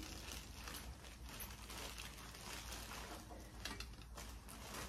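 Faint crinkling and rustling of a clear plastic bag being handled and unwrapped.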